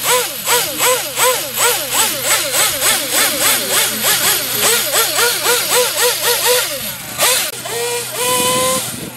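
Small nitro glow engine of an RC monster truck revved in quick repeated throttle blips, about three to four a second, its pitch rising and falling each time. Near the end it runs at a steadier, held pitch.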